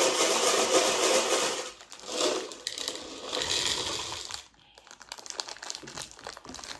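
Loud, continuous rattling-grinding noise that stops about two seconds in, comes back in two shorter bursts, and gives way to faint crinkling near the end.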